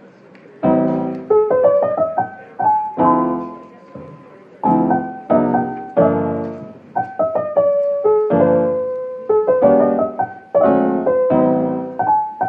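Piano background music: struck chords with a melody over them, each group of notes sounding and fading about every second or so, starting about half a second in.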